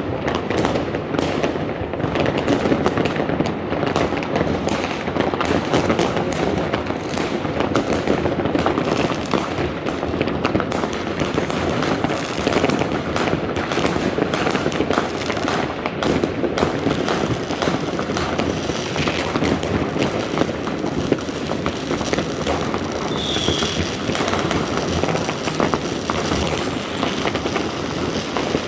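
Dense, continuous fireworks: many overlapping bangs, pops and crackling firecrackers with no pause.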